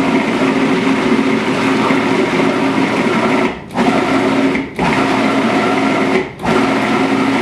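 Cuisinart food processor's motor running as it blends a thick avocado, cocoa and coconut cream mixture, stopped and restarted three times in quick pulses: a long run, then three short breaks.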